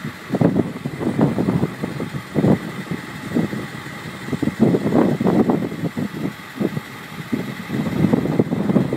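Strong wind buffeting the microphone, rumbling in irregular gusts, with a faint steady high tone underneath.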